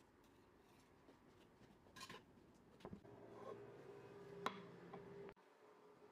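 Faint handling sounds of crockery and a serving utensil: a few light clicks and taps over quiet room tone, the sharpest about halfway through. The sound cuts off abruptly near the end.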